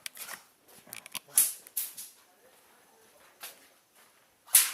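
Short irregular rustling crunches, several in quick succession about a second in and a louder one near the end.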